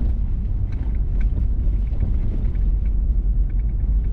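A vehicle driving on a gravel road: a steady low rumble from the tyres and running gear, with scattered small ticks of gravel.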